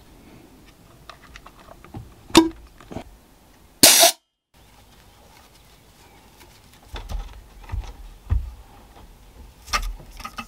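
Clicks of an air hose quick coupler being snapped onto a homemade nail gun, ending in one short, loud burst of hiss. After a cut, faint taps, thumps and scrapes of a nail being handled and slid into the gun's steel tube barrel.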